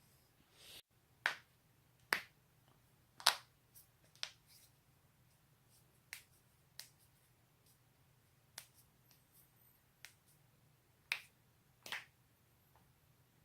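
Neck and back joints cracking: about a dozen short, sharp pops at uneven intervals, a few of them clearly louder than the rest.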